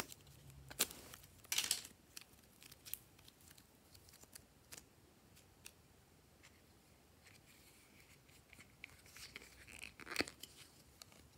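Soft modelling clay being peeled and pressed out of flexible plastic molds: short sticky tearing crackles and clicks, bunched near the start and again toward the end with one sharp click, and a quieter stretch in between.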